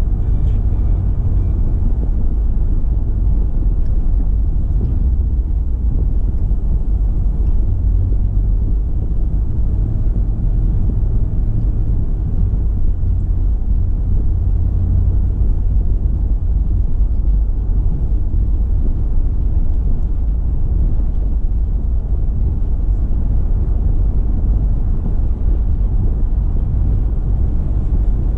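Steady low rumble of a car driving along the road: an even tyre and wind noise that holds at one level without rising or falling.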